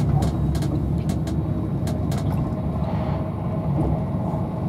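Steady low rumble of an Avanti West Coast Class 390 Pendolino electric train running at speed, heard inside the passenger coach. Scattered sharp ticks sound through the first half.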